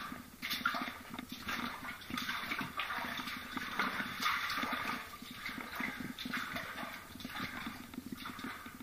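Boots wading through shallow water on a mine tunnel floor, splashing and sloshing in uneven surges about once a second.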